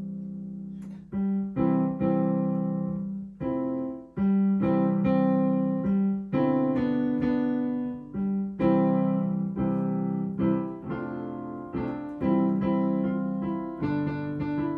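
Electric piano played in a slow run of chords, each struck and left to ring. The keys come up without any clicking, the keyboard felt freshly replaced.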